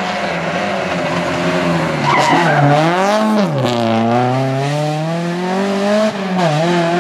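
Rally car engine revving hard, its pitch dropping sharply about three seconds in as the driver lifts, then climbing steadily again, with a short dip near the end.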